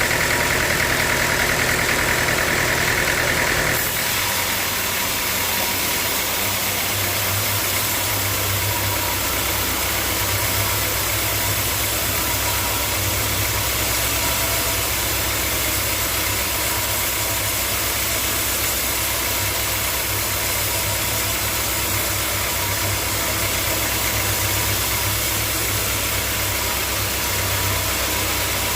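Sawmill machinery running steadily with a low engine hum; a higher whine stops abruptly about four seconds in.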